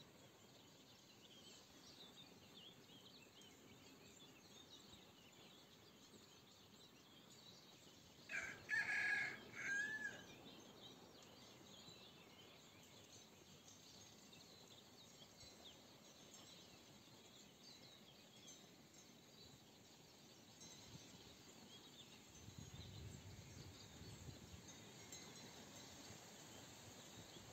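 Faint chirping of small songbirds, broken about eight seconds in by one loud crow from a chicken lasting about two seconds. A low rumble comes in near the end.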